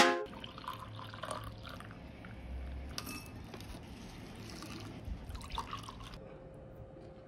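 Milk poured from a carton onto granola in a bowl, then water poured from a jug into a glass, faint and splashy, with a small click or two.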